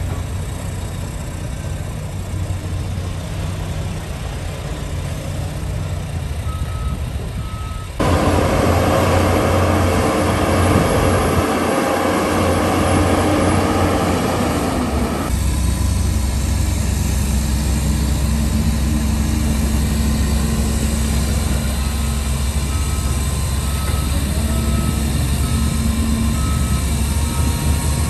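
Heavy diesel earthmoving machinery (dump trucks and a bulldozer) running with a steady low engine rumble. About eight seconds in the sound turns suddenly louder and harsher, then drops back to the steady rumble some seven seconds later. A truck's reversing beeper sounds just before the change and again through the last few seconds.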